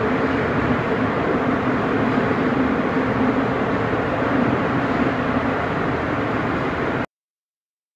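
Rumble of a Seoul Subway Line 6 train running away through the tunnel after leaving the station: a steady, loud noise with a low hum in it. It cuts off abruptly about seven seconds in.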